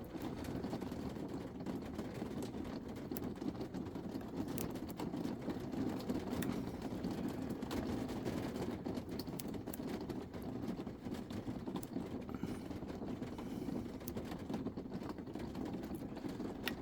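Faint, scattered light clicks and scrapes of a lock pick and tension wrench working the pins inside a lock cylinder, over a steady low background hum.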